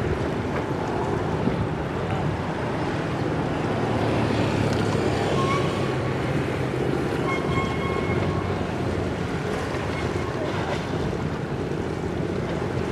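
Harbour tugboat's engine running with a steady low hum, mixed with water wash and wind buffeting the microphone. A few brief, faint high tones sound about halfway through.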